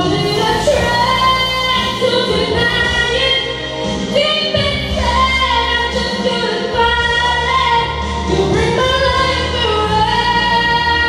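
A young woman singing a slow song into a handheld microphone, holding long notes with vibrato over instrumental accompaniment.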